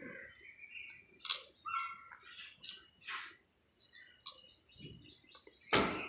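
Dog biting and tugging at a wooden stick: sharp knocks of wood and teeth, the loudest near the end, among short high squeaky chirps.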